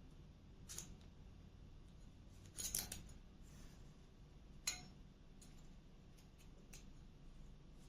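Small metallic clicks and scrapes of a thin feeler gauge being worked into the gap beside a bayan reed on its reed plate, checking the reed's clearance in the slot. A cluster of scrapes comes around three seconds in and a sharp click a little before five seconds, followed by a few faint ticks.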